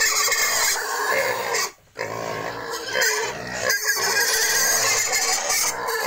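A pen of young domestic pigs calling all at once, a loud, continuous din with a short break about two seconds in.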